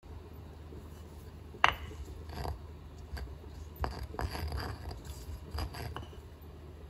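Granite pestle knocking and scraping against a granite mortar while working a wet chili sauce: irregular stone-on-stone strikes, the loudest a sharp knock about a second and a half in, followed by a run of lighter knocks and scrapes.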